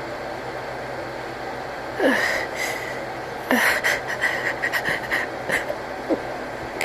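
Sneeze buildup and false start with no sneeze: a sharp gasping inhale about two seconds in, another about a second and a half later, then a run of quick catching breaths and a few more gasps near the end. A steady background hiss underneath.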